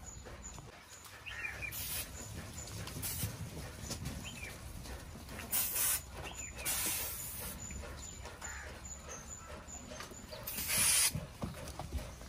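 Aerosol can of party snow spray hissing in five short bursts, the later two lasting about a second each.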